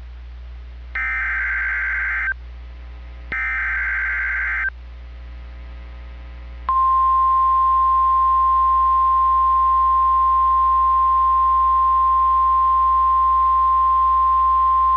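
NOAA Weather Radio Emergency Alert System alert starting: two more blasts of the SAME header's warbling digital data tones, each under a second and a half. About seven seconds in, the long steady warning alarm tone comes on and holds. The sequence opens a Severe Thunderstorm Watch alert.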